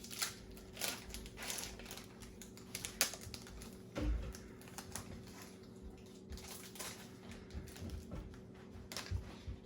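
Pokémon booster pack's foil wrapper being torn open and handled, crinkling in many short crackles and clicks.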